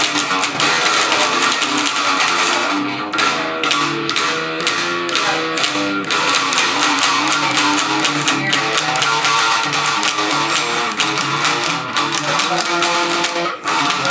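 Metal music with electric guitar playing a riff, dense and loud throughout, with a brief drop about thirteen and a half seconds in.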